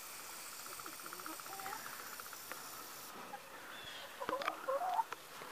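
Quiet yard ambience with a faint, evenly pulsing trill. About three seconds in, this gives way to soft hen clucks, clicks and rustling in a straw-bedded chicken coop.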